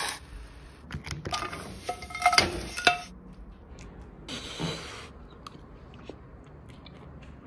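Kitchen utensil sounds: a quick run of clicks and clinks of a metal spoon against a pot, some ringing briefly, over the first three seconds, then a short scraping swish about four and a half seconds in.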